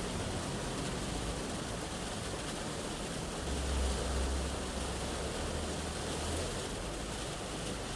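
Rain shower falling on a car's roof and windows, heard from inside the car as a steady hiss. A low rumble swells for about three seconds midway through.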